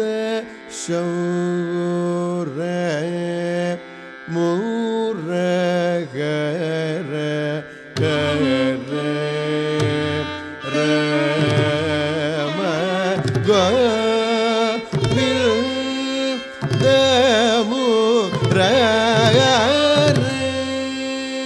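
Carnatic classical music from a Ragam Thanam Pallavi: a melodic line of sliding, ornamented notes over a steady drone. The sound grows fuller and lower from about eight seconds in.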